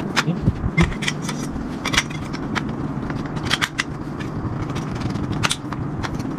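Irregular clicks and light clatter of metal tent-frame poles being handled and slotted into their connectors, over a steady low hum.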